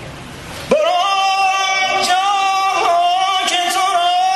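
A man singing Persian classical vocal (avaz) unaccompanied into a microphone: a loud held note that starts abruptly about three quarters of a second in, with vibrato and quick ornamental turns, over a faint crowd murmur.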